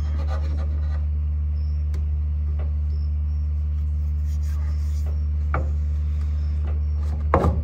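A steady low hum with two short knocks of PVC pipe and fittings being handled, about five and a half seconds in and near the end.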